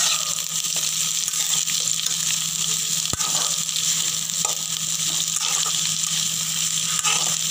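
Sliced brinjal and onion sizzling in hot oil in a kadai as they are stirred with a spatula, a steady frying hiss with a few light clicks of the spatula against the pan.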